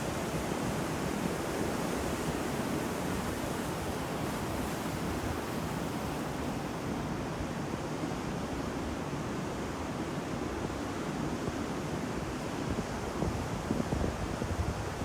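Ocean waves breaking and washing on a shore: a continuous heavy surf noise, with a few louder surges near the end.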